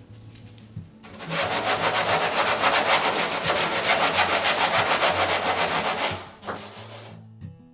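Hand sanding with a sanding block along the cut edge of a hatch opening in a wooden cedar-strip kayak deck, smoothing out the jigsaw cut lines. Quick, even back-and-forth rubbing strokes start about a second in and stop about six seconds in.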